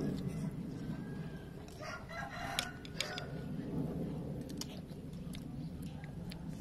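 A rooster crows once, about two seconds in, lasting about a second and a half, over steady low background noise. Light clicks of metal spoons against ceramic bowls come through here and there.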